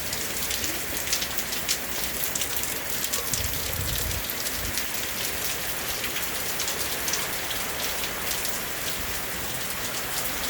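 Rain falling steadily on surfaces, with many separate drop hits heard above the hiss. A brief low rumble comes about three and a half seconds in.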